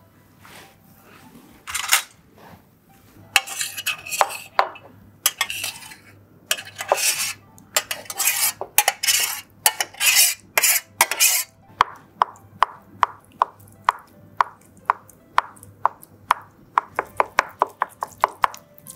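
A stainless steel tray clattering and knocking against a cutting board as the jelly is turned out of it, then a knife slicing through the jelly in a steady run of sharp taps on the board, about two a second, quickening near the end.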